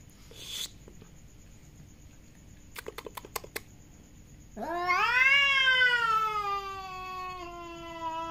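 Cat yowling (caterwauling) in a territorial face-off with a second cat: one long, loud call starting about halfway through that rises sharply, then slowly sinks. Before it come a brief noisy burst and a quick run of clicks.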